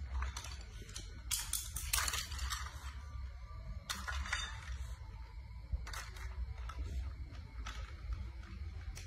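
Scattered short rustles and crinkles, loudest about two seconds in and again near four seconds, over a low steady rumble.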